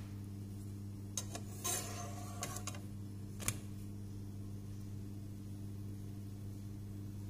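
A utensil clicks and scrapes against a non-stick frying pan as a pancake is turned over. There are a few clicks and a short scrape about a second and a half in, then one sharp knock a little after three seconds, over a steady low hum.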